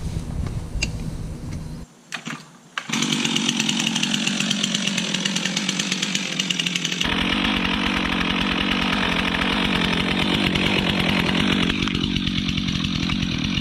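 Stihl chainsaw running at full throttle, cutting into the trunk of a dead pine to notch it for felling. It starts suddenly about three seconds in after a brief near-silence, and its sound shifts abruptly about halfway through.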